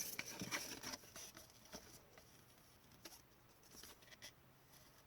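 Rustling and small clicks of a trading-card pack being handled and opened, loudest in the first second, then only faint scattered ticks.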